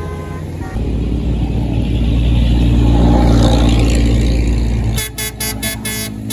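A tour bus passing close, its engine rumble and road noise swelling from about a second in. About five seconds in, its multi-tone telolet (basuri) air horn sounds a quick series of short toots.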